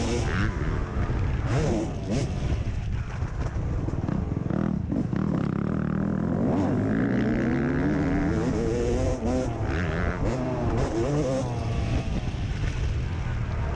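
2002 Yamaha YZ250 two-stroke single-cylinder engine revving hard and easing off again and again as the bike is ridden, its pitch rising and falling with throttle and gear changes. It is heard close up from a helmet-mounted camera.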